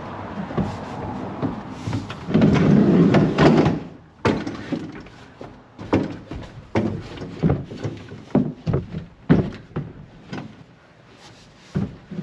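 Knocks, thumps and scraping inside a pickup truck bed under a camper shell as a person kneels, shifts about on the bed liner and handles a folding cot. There is a louder stretch of scraping, lasting about a second and a half, starting about two seconds in.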